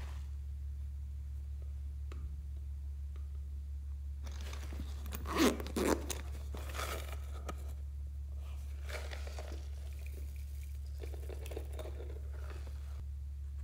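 A plastic container being worked open and handled by hand: two short rasping rips about five and six seconds in, then softer rustling and crinkling, over a steady low hum.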